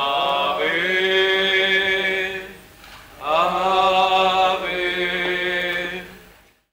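Voices singing a hymn during communion at a Catholic mass: two long sung phrases with held notes and a short breath between them. The singing fades out to silence near the end.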